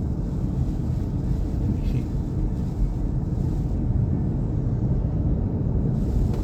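Steady low road and engine rumble of a Nissan Pathfinder driving along, heard inside the cabin.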